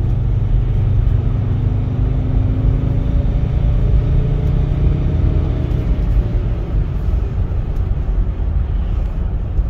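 Mercedes ML 270 CDI's 2.7-litre five-cylinder diesel heard from inside the cabin, accelerating with a low rumble. The revs climb past 3000 rpm over the first few seconds and then drop back. The engine revs freely past 3000 rpm now that the fault that held it below that is fixed.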